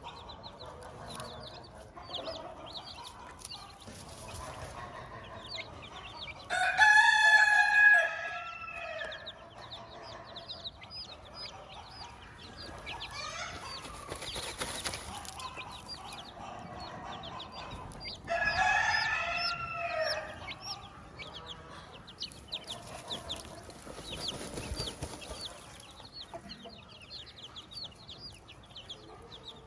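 Chickens: a hen clucking with her chicks peeping steadily throughout in short high notes. A rooster crows twice, loudly, about seven and eighteen seconds in.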